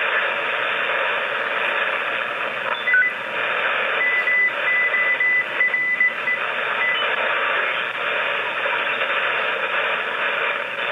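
Shortwave receiver audio from a FlexRadio 6600M on the 80-metre band: a steady rush of static and band noise, with a few sharper static crashes from thunderstorm lightning. Partway through, a faint run of short on-off beeps of a single high tone comes through the noise.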